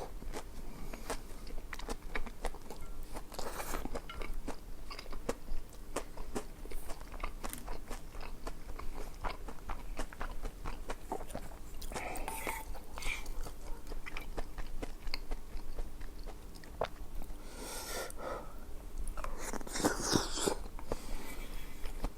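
A person chewing and biting food close to the microphone, with many small wet clicks of the mouth. There are a few louder noisy bursts about halfway through and again near the end.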